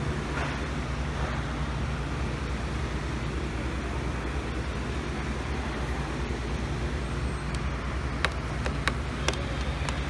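Steady low rumble and hum of a large store's background noise, with a few sharp clicks over the last two seconds as a hand works a pedestal fan's control panel.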